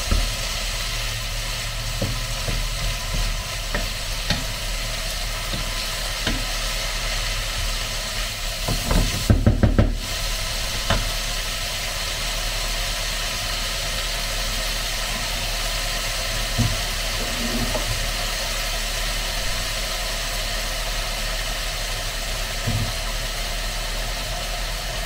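Minced meat with peppers and onion sizzling steadily in a frying pan, with a wooden spatula scraping and clicking against the pan in the first few seconds. A short cluster of louder knocks comes about nine seconds in.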